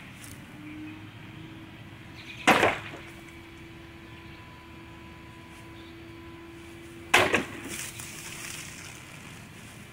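Two sharp whacks, about four and a half seconds apart, of a jian (Chinese straight sword) blade striking a water-filled plastic gallon milk jug, each with a short splashy tail. The jug is knocked and dented rather than cut through.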